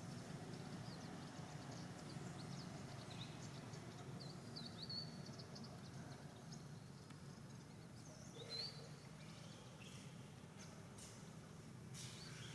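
Faint, scattered high-pitched chirps from small animals over a steady low background hum, with a couple of louder chirps about five and eight and a half seconds in and a few sharp clicks near the end.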